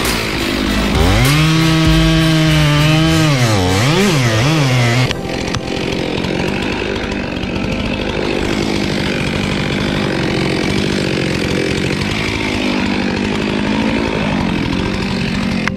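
Stihl two-stroke chainsaw cutting through a cherry log at full throttle, its engine note dipping and recovering as the chain loads up in the cut. About five seconds in, the cut ends and the saw drops to a quieter, steady running.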